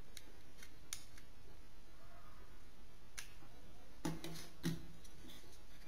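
Small sharp plastic clicks from handling the flip phone and its charger cable, then a short run of knocks about four seconds in as the phone is set down on the wooden table beside its cradle.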